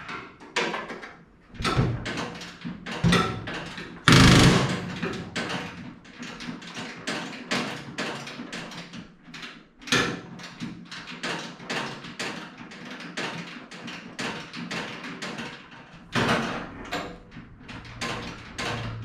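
Irregular clicking, knocking and clattering of aluminium airframe parts and hand tools being handled and fitted together, several sharp knocks a second, with a louder clatter about four seconds in.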